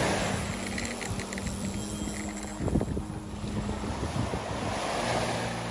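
Wind buffeting the microphone over breaking surf, with a sharp thump about two and a half seconds in.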